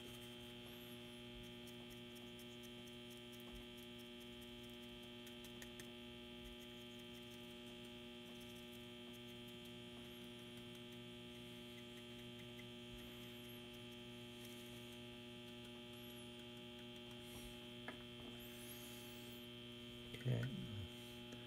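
Steady low electrical mains hum with a thin high whine above it, unchanging throughout. A brief soft low sound comes near the end.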